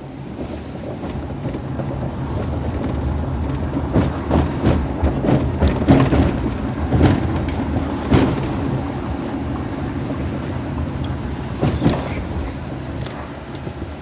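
Car running and rolling along a city street, heard from inside the cabin: a steady engine and road hum, with a run of knocks and clatters about four to nine seconds in and a few more near the end.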